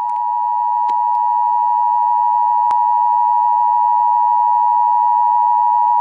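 Emergency Alert System attention signal: the steady two-tone alarm held unbroken, announcing a severe thunderstorm warning.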